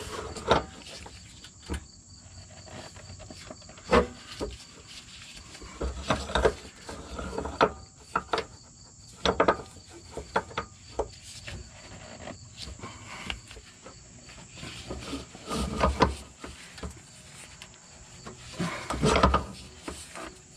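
Scattered rubbing, creaks and short knocks as a gloved hand turns a rubber SumoSprings suspension spring, threading it by hand onto its bolt in the van's frame. The loudest knocks come about four seconds in and again near the end. A steady high-pitched insect trill runs underneath.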